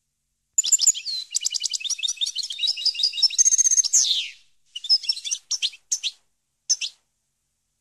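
European goldfinch song: starting about half a second in, a fast, high twittering phrase of rapid trills runs for about four seconds and ends in a falling slur, followed by four short twittered phrases.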